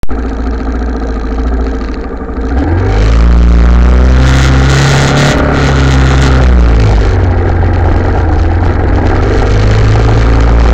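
Italika TC250 motorcycle engine idling, then revving up about two and a half seconds in as the bike pulls away. It then runs loud and steady, with dips in pitch near five and a half and seven seconds.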